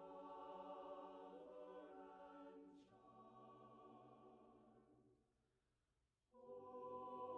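Faint background music of sustained choral chords; it fades out about five seconds in and comes back a second later.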